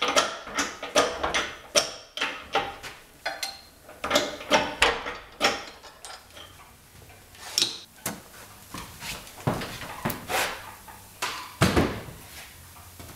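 Running shop machinery ticking regularly, about two to three clicks a second, fading about halfway through. Then a few separate metal clunks as parts are handled, the loudest near the end.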